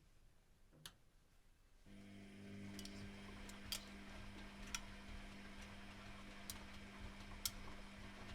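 Privileg Classic 30612 washing machine in a 95°C boil-wash cycle. About two seconds in, its motor starts with a faint steady hum, and light clicks come roughly once a second.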